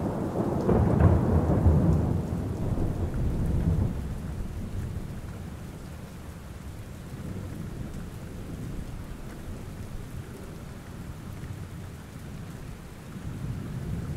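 Thunderstorm: a roll of thunder rumbles through the first few seconds and fades away over steady falling rain. Another low rumble of thunder swells near the end.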